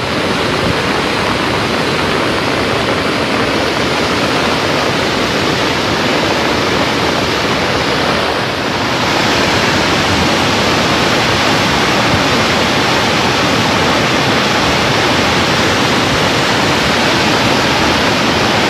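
Steady rush of floodwater pouring over a dam spillway, a dense, even roar. It dips briefly about eight and a half seconds in, then goes on a little brighter.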